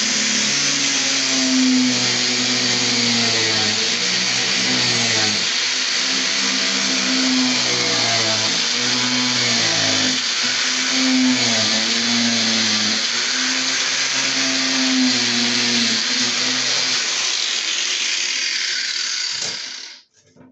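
Angle grinder with an abrasive cut-off disc cutting a sheet of plexiglass about 4 mm thick, running steadily under load, its pitch wavering as the disc bites into the acrylic. It is switched off near the end.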